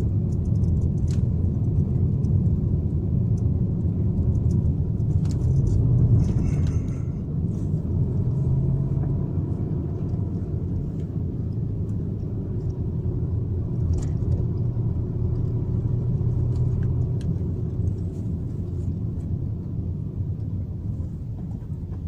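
A car's engine and road noise heard from inside the cabin while driving: a steady low rumble with a few faint clicks, easing slightly about seven seconds in.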